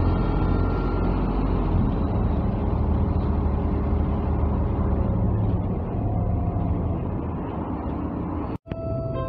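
Cabin noise of a MAZ-203 low-floor city bus on the move: a steady low engine drone mixed with road noise. It cuts out suddenly for a moment near the end, after which a steady tone begins.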